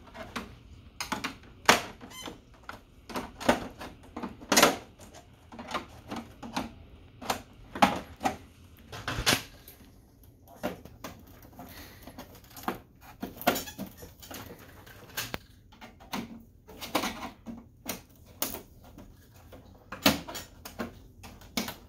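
Irregular plastic clicks, taps and knocks: a flathead screwdriver prying at the clips of a laser printer's plastic side cover, and the cover being worked loose by hand.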